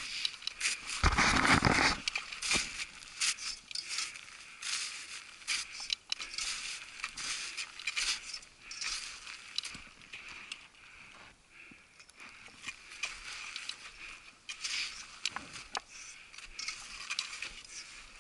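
Crampon footsteps crunching in snow, an irregular run of crunches and clicks, with a louder burst of noise about a second in.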